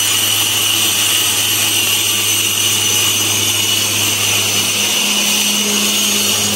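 Steady machine noise: an electric motor running with a constant high whine over a low hum, unchanging throughout.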